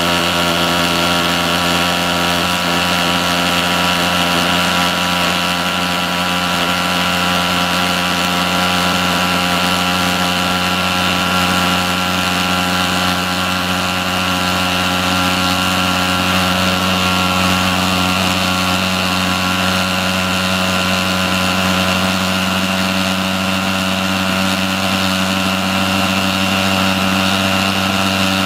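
Igeba TF 35 thermal fogger's pulse-jet engine running with a steady, even drone during its warm-up.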